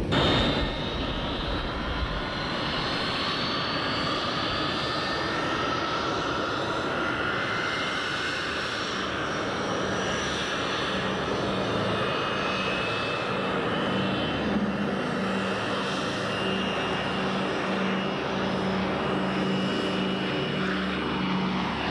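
Douglas DC-6A's four Pratt & Whitney R-2800 Double Wasp radial piston engines and propellers at takeoff power as the airliner takes off and climbs out overhead. The steady drone carries a whine that rises in pitch over the first several seconds, and a low propeller hum comes in about halfway through.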